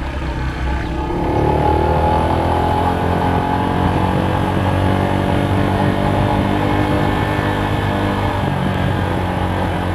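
An engine speeding up over the first couple of seconds, then running at a steady speed.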